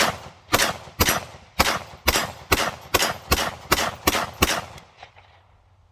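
AR-15 rifle fired semi-automatically, about eleven shots at roughly two a second, with a brass catcher bag strapped on. The shooting stops short of the 30-round magazine a little after four and a half seconds in, when a spent case gets stuck in the catcher.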